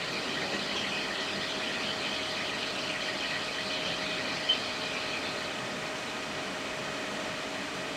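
Small electric fan running steadily, a hiss with a faint hum, blowing over a freshly soldered charging chip to cool the board. A short click about four and a half seconds in.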